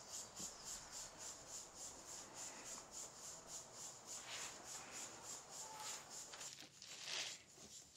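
Quiet background hiss with faint soft rubbing, as of a hand and clothing moving against each other, and a faint rapid high pulsing running through it.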